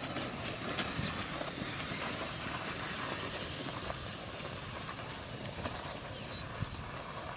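Hooves of plough cows plodding over field soil: irregular soft knocks over a steady outdoor hiss, with one sharper knock near the end.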